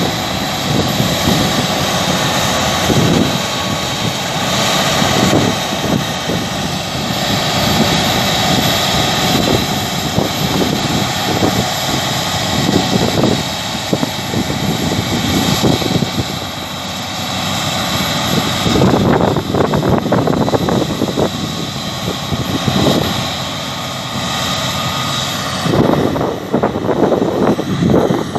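Claas Lexion 660 combine harvester running steadily as it harvests winter wheat: a continuous loud machine drone with a faint steady whine, broken by irregular low rumbles.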